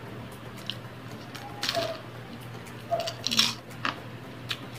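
Close-up crunching and chewing of a crisp fried roll, with two loud crunchy bites about a second and a half apart and small mouth clicks between them.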